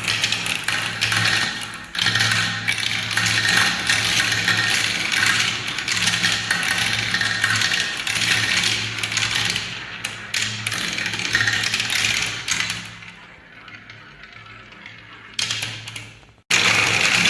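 Many balls rolling and clattering down a spiral marble-run ramp: a dense rattle of clicks and a rolling rumble that thins out and fades about thirteen seconds in, then cuts back in loud near the end.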